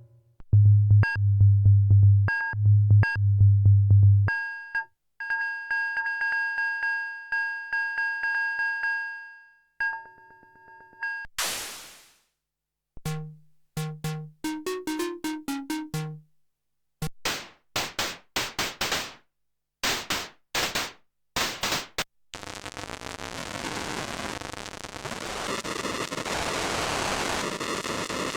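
Arturia MicroFreak synthesizer playing a run of different preset patches one after another. A pulsing deep bass for about four seconds gives way to a fast repeating high pattern, then a sweep, scattered notes and a string of sharp clicks. A steady noisy wash takes over for the last third.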